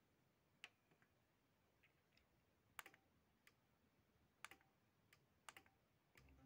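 Near silence: room tone with a few faint, scattered clicks, and a faint low sound coming in right at the end.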